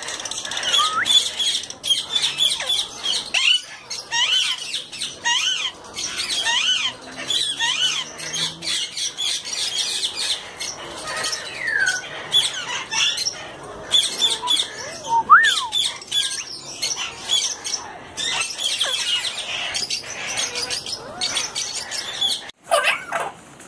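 A large flock of caged parakeets chattering and screeching together: a dense, unbroken mass of high chirps, with now and then a single louder squawk sliding up and down in pitch.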